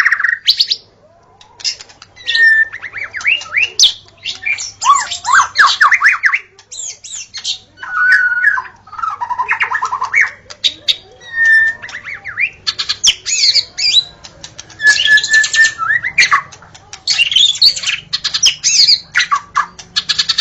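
White-rumped shama singing a loud, varied song. Phrase follows phrase with short pauses: steady whistles, rapid trills and harsh chattering notes.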